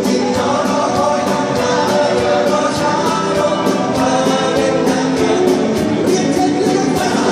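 Live band music with a singer, a Thai pop song played loud with a steady beat, heard from the audience in a large arena hall.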